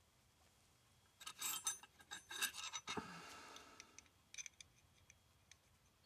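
Small metal valve fittings being handled and screwed together: a cluster of clicks and scrapes from metal on metal, a short metallic ring about three seconds in, and a few light clicks a second later.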